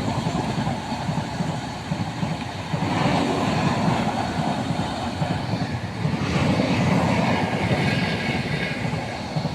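A train rolling past on the tracks: a steady rumble of wheels and cars that swells twice as carriages go by.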